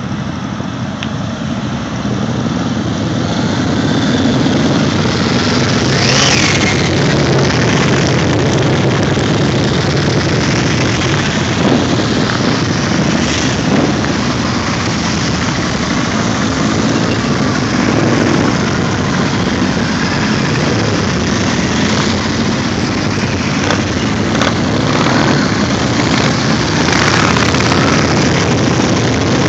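A column of motorcycles riding past one after another, many engines running together, with individual bikes revving up and easing off several times as they pass close by.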